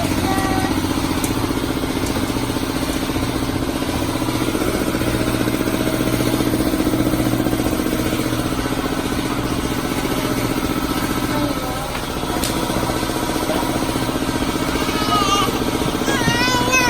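A vehicle engine idling steadily, with a brief dip in level about twelve seconds in; voices come in near the end.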